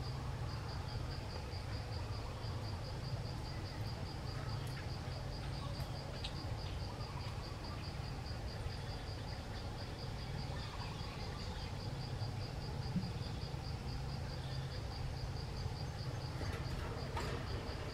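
An insect chirping steadily in a high-pitched, even pulse of about five beats a second, over a constant low rumble.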